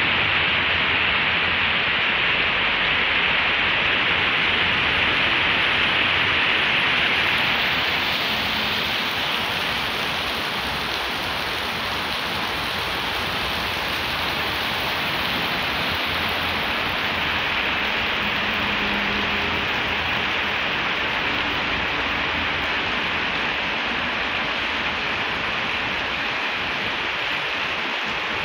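Heavy rain falling steadily on wet pavement and puddles, an even hiss that eases slightly about eight seconds in.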